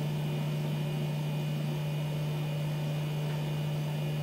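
A steady low hum with a faint hiss underneath, unchanging throughout.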